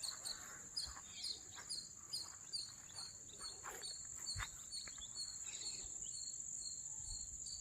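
Faint, steady high-pitched drone of insects such as crickets, with a short chirp repeating about two to three times a second over it.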